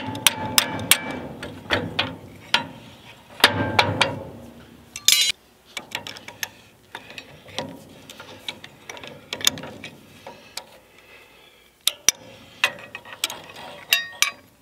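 Irregular metallic clicks and clinks of an adjustable wrench and a hammer working a rusted nut on a vintage cement mixer's locking handle, with a busier flurry of knocks about three to four seconds in.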